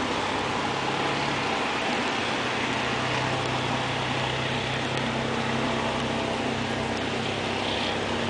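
Heavy rain falling on floodwater, a steady hiss, with the low hum of a vehicle engine underneath.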